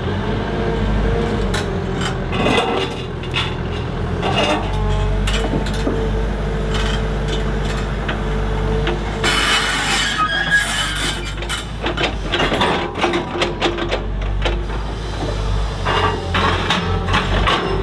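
Komatsu HB215LC hybrid excavator running steadily while its TMK MultiGrab grapple handles boulders, with repeated knocks and scrapes of rock against steel and rock against rock. A louder scraping rush comes about nine seconds in.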